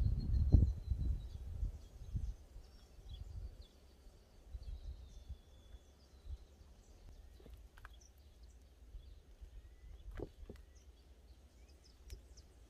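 Outdoor ambience: low wind rumble on the microphone, heaviest in the first couple of seconds, then quieter with faint bird calls. A few light clicks come around eight and ten seconds in.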